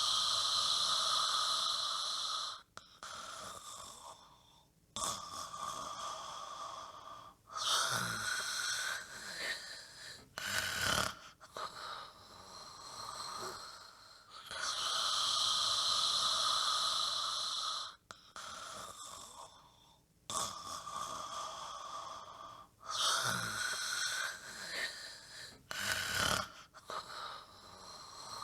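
A dog snoring in deep sleep, close to the microphone. Long, loud snores come about every seven to eight seconds, with quieter breaths between them.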